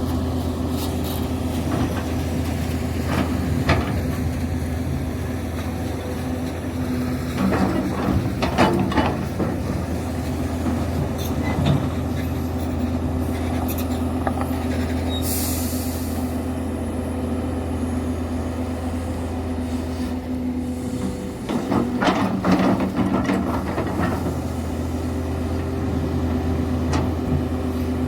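Link-Belt excavator's diesel engine running steadily. Two stretches of metallic clanking and squealing come through, about a quarter of the way in and again about three-quarters in, and a short hiss comes about halfway.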